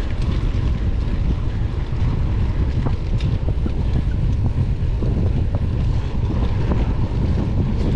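Wind buffeting the microphone during a mountain-bike ride, a constant heavy rumble, with scattered small clicks and knocks from the bike rattling over the trail.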